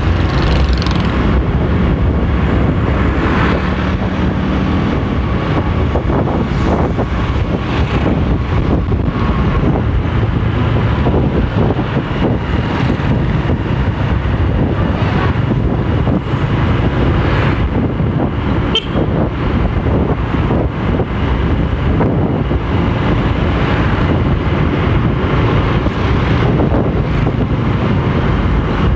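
Honda motorcycle engine running steadily while riding along a street, with traffic noise around.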